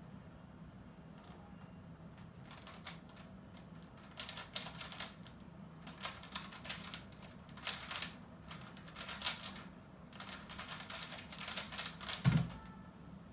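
GAN 354 M magnetic 3x3 speedcube being turned very fast in a speedsolve: a rapid clatter of layer turns in bursts that starts about two and a half seconds in. It ends with a loud thump just after twelve seconds.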